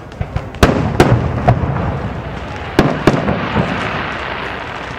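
Aerial fireworks shells bursting with sharp bangs, two about half a second apart in the first second and two more near three seconds, followed by a fading hiss.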